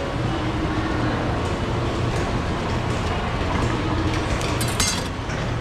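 Steady rumbling background din with a constant low hum, broken near the end by a quick rattle of light clinks.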